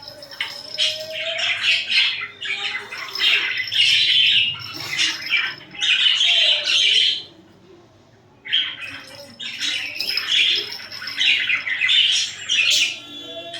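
Budgerigars chattering and squawking in a rapid, loud run of chirps that stops for about a second midway, then starts up again.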